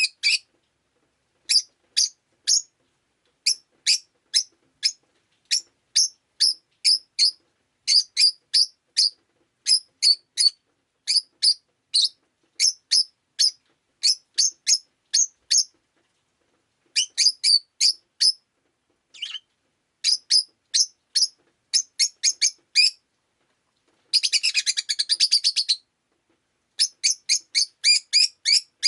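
Rosy-faced lovebird chirping: short, sharp, high-pitched calls in quick groups of three to six, with brief pauses between groups. Near the end comes a run of rapid chatter lasting about two seconds.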